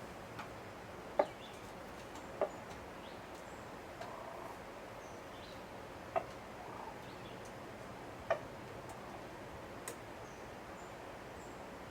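Faint, steady rain hiss with single water drips landing every second or two.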